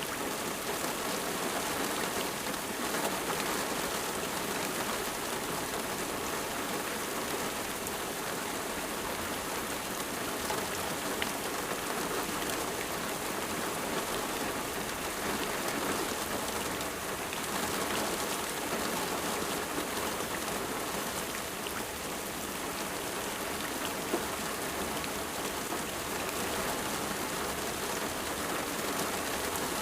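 Steady rain falling and pattering on a surface, with fine drop ticks over an even hiss.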